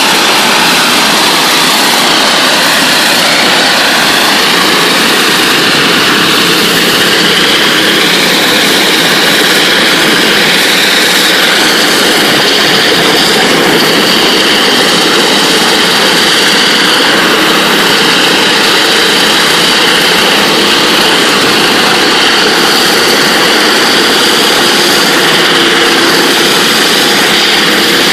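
NLB Spin Jet 40,000 psi rotary water-jet surface cleaner running with a loud, steady hiss as its spinning ultra-high-pressure jets strip the floor surface.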